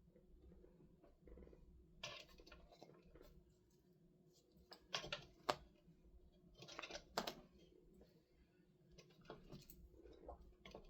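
Faint clicks and rustles of small parts being handled during a small air compressor repair, in short bursts about two, five, seven and ten seconds in, over a low steady hum.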